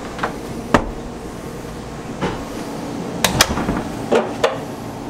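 Wooden cabin doors on a yacht being opened and shut by their lever handles: a string of sharp latch clicks and knocks, about seven in all, over a steady low hum.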